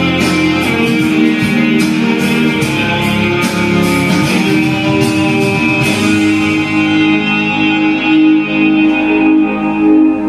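Instrumental passage of a pop song's karaoke backing track, with no vocal; rhythmic hits keep time until about six seconds in, then held chords ring on alone.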